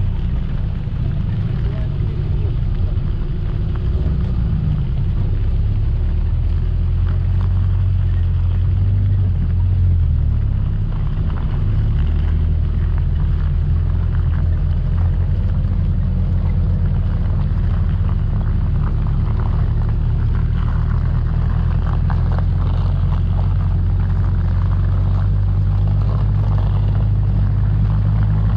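Off-road vehicle's engine running steadily while driving a rough track, heard from the vehicle, its pitch shifting a few times in the first dozen seconds. Light knocks and rattles come through in the second half.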